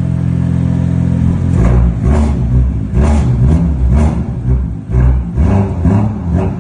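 BMW M2 F87 engine running through its M Performance exhaust, idling steadily, then blipped again and again from about a second and a half in, the revs rising and falling in quick succession. The M Performance rear silencer rattles because its internal baffle plates have worked loose.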